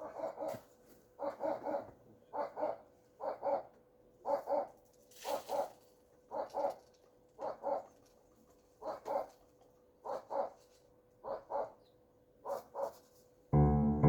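An animal calling over and over in short, evenly repeated calls, about one a second, each with a quick double pulse. Music comes in just before the end.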